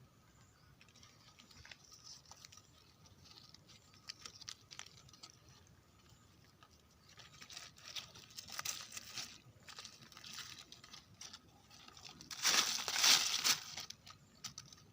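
Dry leaf litter rustling and crackling in irregular bursts, with small snaps and twigs breaking, as someone forages on the forest floor. The sound is loudest in a burst about twelve to thirteen and a half seconds in.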